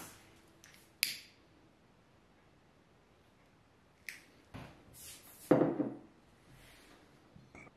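Quiet room sounds broken by short tableware clicks: a sharp click about a second in, then near quiet. Later, a click-lighter is sparked to light a birthday candle, followed by a louder, duller knock about a second and a half after it.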